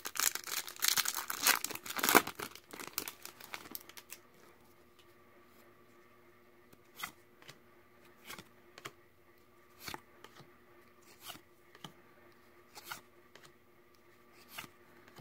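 Foil Yu-Gi-Oh! booster pack torn open and crinkling for the first three seconds or so. After that come soft card flicks, about one a second, as the pulled cards are slid one at a time off the front of the stack.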